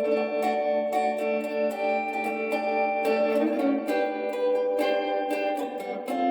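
Guitar music: plucked, sustained notes played one after another, with no speech over it.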